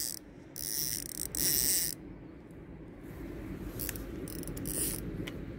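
Fishing reel's drag buzzing in two spurts as a big carp pulls line off, stopping about two seconds in; a few faint clicks follow.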